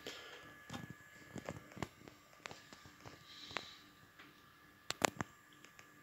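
Faint, irregular clicks and taps, two of them sharper about five seconds in, over a faint steady high tone.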